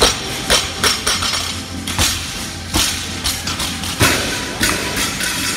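Barbells loaded with rubber bumper plates being dropped and set down on a rubber gym floor: a series of sharp thuds and clanks, the loudest right at the start and about four seconds in, over background music.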